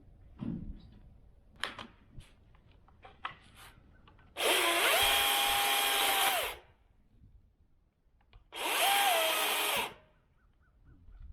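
DeWalt 60V FlexVolt brushless battery chainsaw triggered in two short bursts, the motor spinning up to a steady high whine and winding down each time, the first about two seconds long and the second just over a second. A few light clicks and knocks of handling come before.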